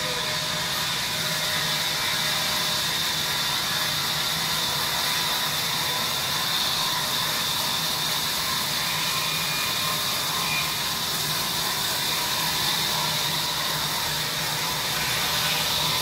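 Large vertical band saw running and cutting through a big log: a steady, even hiss with a faint low hum beneath.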